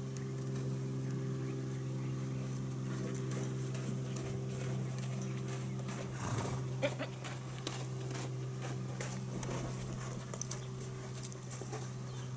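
Horse's hoof steps and scuffs on soft sand arena footing, with a few soft knocks about halfway through and near the end as it noses a large inflatable ball, over a steady low hum.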